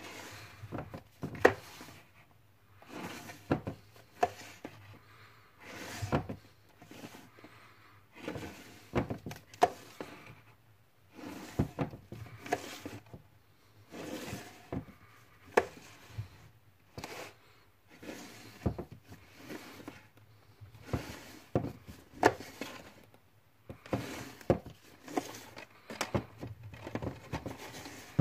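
Plastic disc cases being slid off and back onto a wooden shelf: irregular sharp clicks and knocks of case against case and against the shelf, with short sliding rustles in between.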